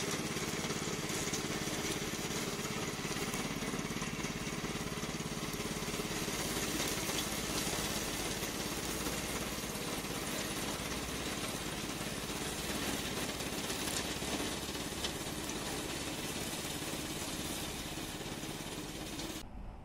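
Remote-controlled lawn mower's petrol engine running steadily at a constant speed, with a hard cut-off just before the end.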